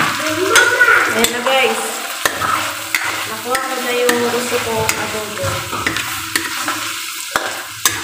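Metal spatula stirring chicken pieces in a metal wok, with scrapes and knocks of the spatula against the pan over a steady sizzle as the coconut-milk adobo sauce cooks down.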